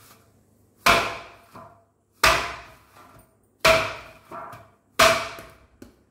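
Dough being kneaded by hand in a large stainless steel plate: four hard thumps about a second and a half apart, each setting the metal plate ringing briefly, with a lighter knock after each.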